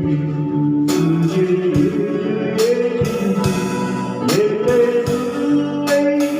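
Live electric-guitar band music: a sustained guitar melody with sliding notes over a drum kit beat, with regular cymbal and drum hits.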